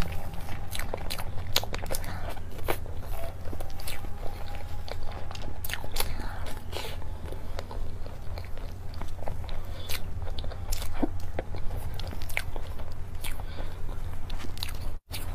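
Close-miked eating of a chilled mousse cake: wet chewing and lip smacks, with irregular sharp clicks and scrapes of a knife and fork against the cake plate, over a steady low hum. The sound cuts out for a moment near the end.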